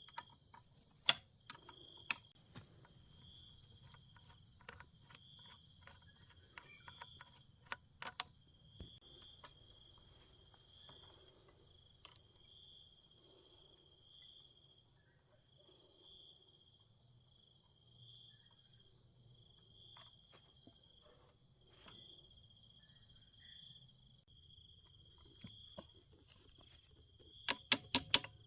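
Sharp clicks and taps of work on a chainsaw: a few in the first seconds, one about eight seconds in, and a quick loud cluster near the end. Under them runs a steady high chorus of insects, one band pulsing about once a second.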